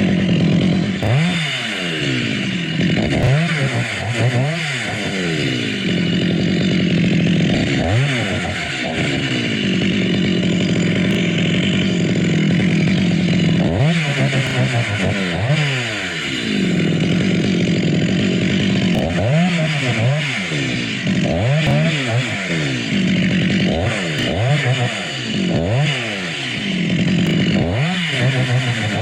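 Two-stroke chainsaw engine running hard, its pitch dropping and climbing back again and again as the throttle is eased and opened or the chain loads up in the cut.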